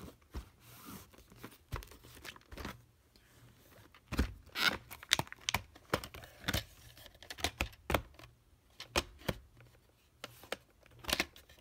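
Plastic VHS clamshell case being handled, opened and the cassette lifted out: a run of short plastic clicks and knocks, busiest from about four seconds in.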